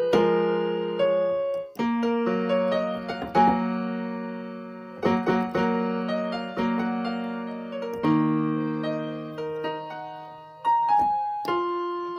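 Background piano music: slow chords struck every second or two, each ringing and fading before the next.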